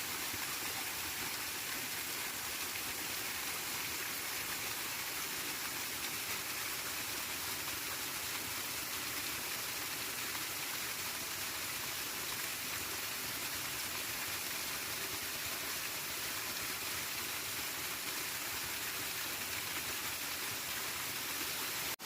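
Steady, unbroken noise of water, even and unchanging throughout, with a short dip at the very end.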